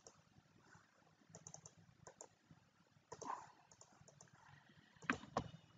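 Faint computer keyboard typing and mouse clicks: scattered single keystrokes, with the two loudest clicks about five seconds in.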